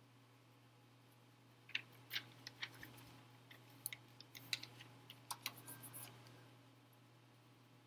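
A quick, irregular run of light, sharp clicks and taps, heard for about four seconds starting near two seconds in.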